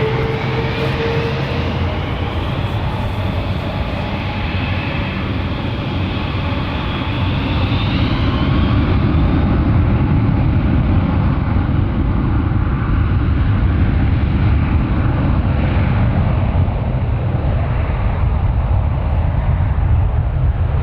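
Boeing 747 jet engines spooling up for departure: a rising whine over a heavy rumble, which turns into a louder, broader roar about eight seconds in.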